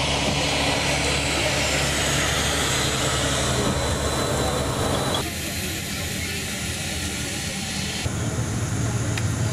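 Steady engine rumble and hiss inside a moving airport apron bus, mixed with jet noise from a taxiing airliner outside. About five seconds in, the higher hiss drops away abruptly. About eight seconds in, a lower hum grows louder.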